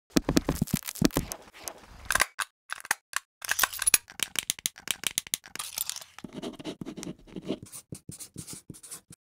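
A dense, irregular run of scratchy clicks and rasps, busiest in the first few seconds, with a few deeper rubbing sounds later on. It stops just before the end.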